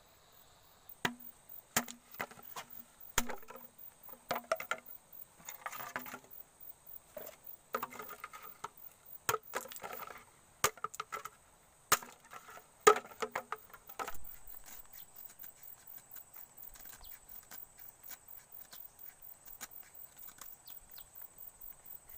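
Bamboo being chopped and split with a blade: a run of sharp, hollow-ringing knocks, one every half second to a second, that stops about fourteen seconds in. A faint, steady, high insect drone runs underneath and carries on alone after the chopping ends.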